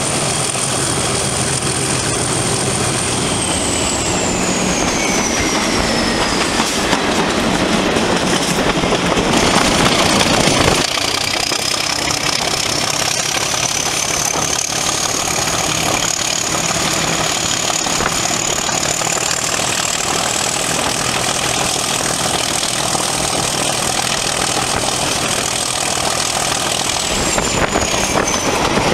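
Class 37 diesel-electric locomotive working under power, its English Electric V12 diesel engine running hard with the class's high turbocharger whistle over it. The whistle falls in pitch a few seconds in, climbs back slowly from about ten seconds in, and falls again near the end.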